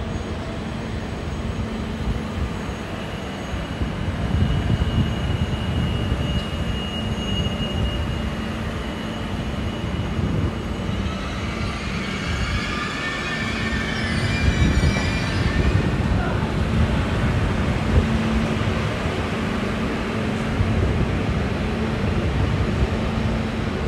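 A passenger train pulling slowly into a station platform, rumbling, with a few seconds of high-pitched, wavering squeal about halfway through as it slows.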